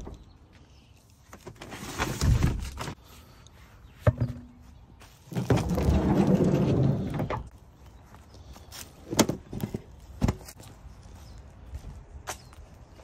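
A van's sliding side door being handled: a short rush and a click, then a longer rolling rush about halfway through as the door slides, followed by a few sharp latch clicks and knocks.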